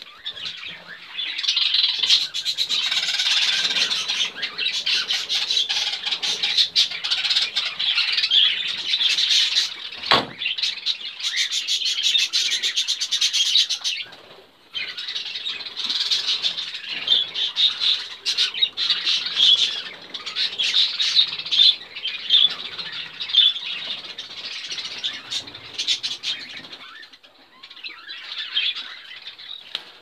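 A flock of budgerigars chattering and chirping without pause, a dense high warble of many short calls. There is a dull knock about ten seconds in, and the chatter thins out over the last few seconds.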